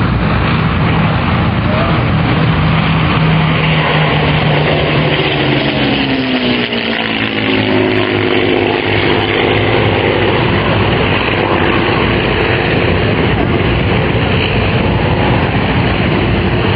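Formation of piston-engined warbirds (Hurricane, Blenheim and Mustang) flying past, the engine drone falling in pitch about five to eight seconds in as the aircraft go by. Heavy wind noise on the microphone runs under it.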